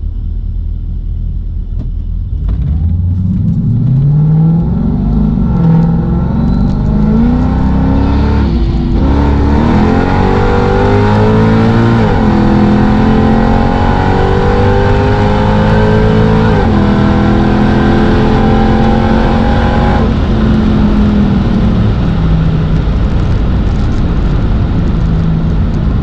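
Mercedes CLK55 AMG's 5.4-litre V8 heard from inside the cabin, pulling hard at full throttle from a roll: the engine note climbs steadily and dips briefly at upshifts about 12 and 17 seconds in. About 20 seconds in the throttle is lifted and the engine drops to a lower, steady note as the car coasts.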